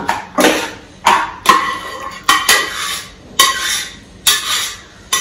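Spoon scraping and knocking against the inside of a metal pressure cooker as thick cooked moong dal kootu is emptied into a bowl. The clanks come one or two a second, each with a short metallic ring.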